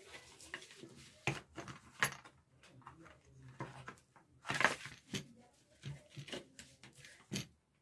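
Hands handling a plastic extension switch board box, its cover and wires: a run of small plastic clicks, taps and rustles, the loudest about four and a half seconds in.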